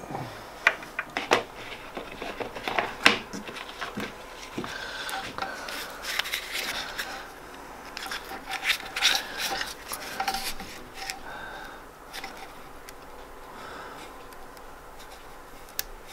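Hand screwdriver turning tight screws into a lathe's control-module mounting, with irregular clicks, scrapes and rubbing as hands handle the metal parts and wiring.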